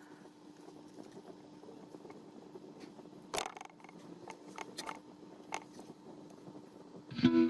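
Faint clicks and small handling noises of wiring work on a circuit board, with one short scrape about three seconds in and a faint steady hum under it all. Music comes in just before the end.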